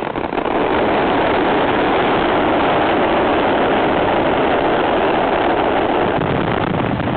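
Rapid fireworks barrage: many shells launching and bursting so close together that they merge into one loud, continuous noise. It sets in just after the start and eases slightly near the end.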